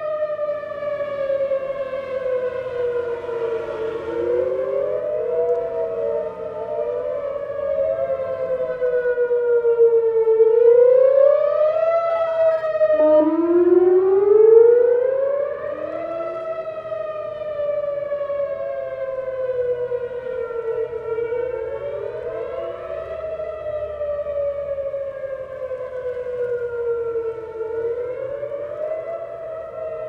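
Whelen Vortex R4 rotating electronic outdoor warning siren sounding, its pitch rising and falling in slow sweeps of several seconds. It is loudest around the middle.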